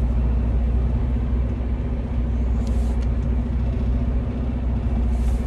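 Semi truck's diesel engine running at low speed while the rig is backed in, a steady low rumble heard from inside the cab.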